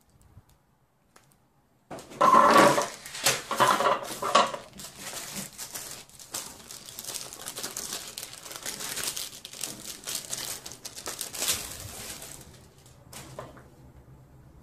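Plastic packaging sleeve crinkling and rustling as it is handled and pulled off a laptop. It starts about two seconds in, is loudest for the first couple of seconds, then keeps up a softer rustle that fades out, with one last brief crinkle near the end.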